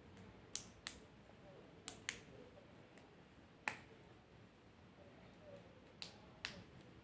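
Sharp plastic clicks from handling the parts of a selfie stick, seven in all, mostly in pairs a fraction of a second apart, the loudest a little past halfway, with near silence between them.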